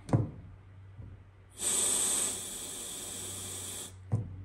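A hiss lasting a little over two seconds, strongest in its first half second, at a fitting of a freshly pressurised compressed-air line during a leak check, with a handling knock near the start and another near the end.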